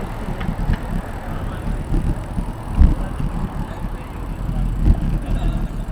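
Riding noise on a Brompton folding bicycle: an uneven low rumble of wind buffeting the microphone and tyres rolling on the road.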